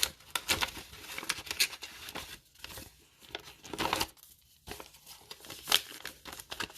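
Crinkling and rustling of sealed foil Magic: The Gathering booster packs and paper envelopes being handled, in irregular strokes with a few sharper crackles and short pauses.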